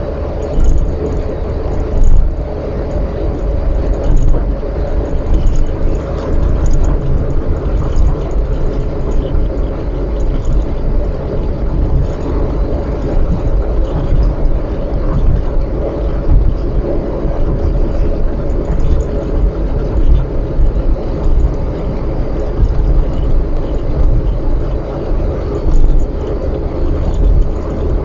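A car driving at speed on an expressway: steady low road and engine rumble with a constant hum, rising and falling slightly with small bumps.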